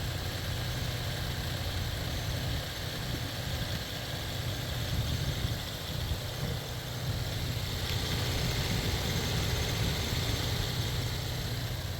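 Buick LaCrosse engine idling steadily on freshly changed oil, running smoothly.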